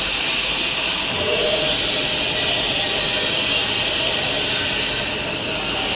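CNC lathe machining an aluminium ring, heard as a steady, even hiss with the machine running underneath.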